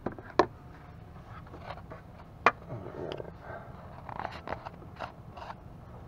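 Handling noise: sharp knocks and scraping as a phone camera is worked in among the plastic intake manifold runners of the engine bay, with two louder knocks, about half a second and two and a half seconds in, among smaller taps and rubbing.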